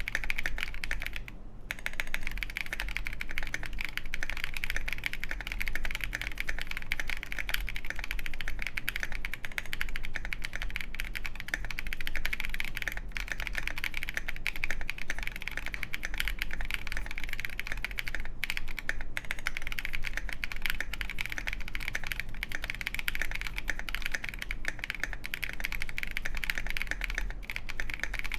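Fast, continuous typing on a KindleStar Orion 87 mechanical keyboard with lubed Boba U4T tactile switches on a polycarbonate plate, KAT Mizu keycaps and foam-filled case: a dense run of keystrokes with a brief pause about a second and a half in.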